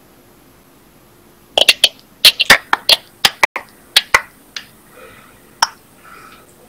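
An uneven run of about fifteen sharp clicks and smacks over about three seconds, starting about one and a half seconds in, with one more a second later.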